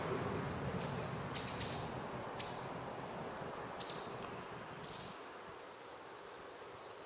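Short, high chirps from a small animal, about six of them spaced unevenly over five seconds, over a low rumble that drops away about five seconds in.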